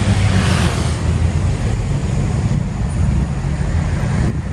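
City street traffic: a steady low rumble of cars and buses on the road, with one vehicle going by about half a second in. The sound drops out briefly near the end.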